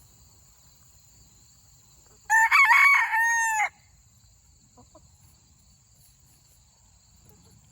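A rooster crowing once, a cock-a-doodle-doo of about a second and a half, a couple of seconds in. A steady high-pitched insect drone, like crickets, runs underneath.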